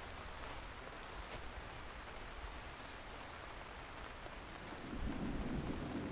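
Steady rain-like hiss of outdoor ambience with a few faint ticks. A low rumble swells in about five seconds in.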